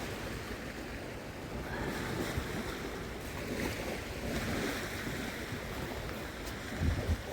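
Small waves washing onto a sandy beach, with wind buffeting the microphone and low rumbling gusts near the end.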